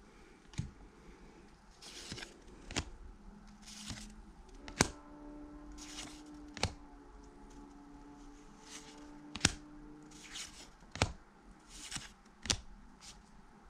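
1991 Pacific football trading cards being flipped one by one from the front of a hand-held stack to the back: soft swishes of card stock sliding, with a sharp click every second or two as each card snaps against the stack.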